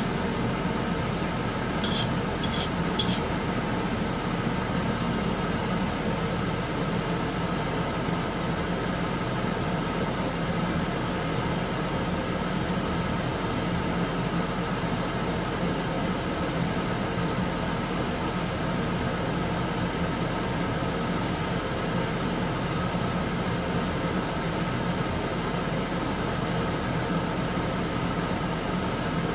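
Beef fat boiling in water in a wok during tallow rendering, over a constant mechanical hum. A few sharp pops come about two to three seconds in.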